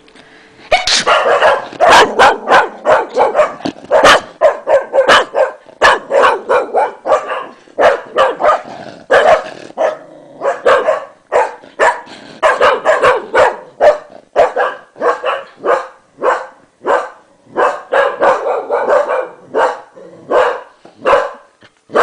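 English Cocker Spaniel barking again and again, about two sharp barks a second, starting about a second in and keeping on with only brief gaps. This is the dog's reaction to its owner sneezing.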